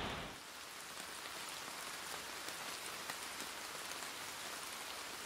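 Rain falling steadily, a soft even hiss with faint scattered drop ticks.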